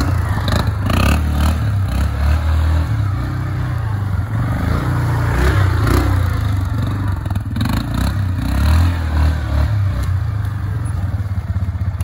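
Yamaha Kodiak ATV's single-cylinder four-stroke engine running and revving up and down as the quad turns tight circles, tyres churning through snow and mud. A few knocks and rattles come from the machine along the way.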